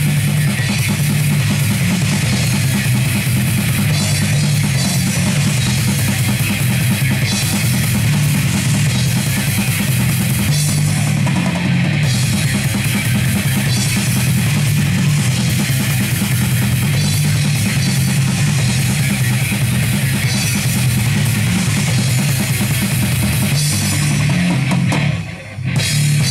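Heavy metal band playing live, an instrumental passage of electric guitar, bass guitar and drum kit with cymbals. The band stops for a brief moment near the end, then comes back in.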